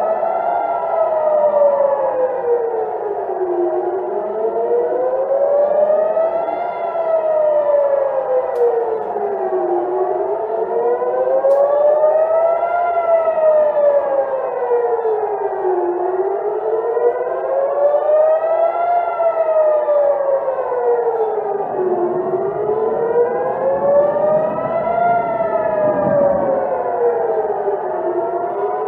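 Civil-defence air-raid siren wailing, its pitch slowly rising and falling about every six seconds: the alarm warning of incoming rocket fire.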